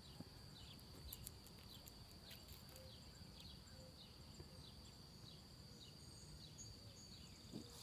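Faint outdoor ambience: birds chirping in short falling notes, about two a second, over a steady high-pitched drone and a low rumble of wind.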